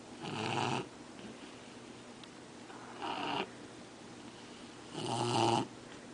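A sleeping Shar-Pei snoring, three snores about two and a half seconds apart.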